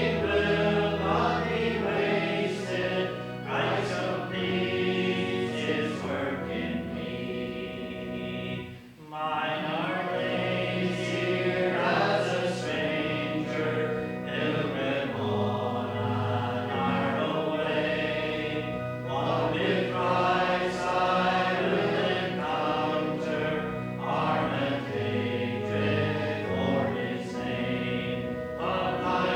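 A congregation singing a hymn together, with a short break between phrases about nine seconds in.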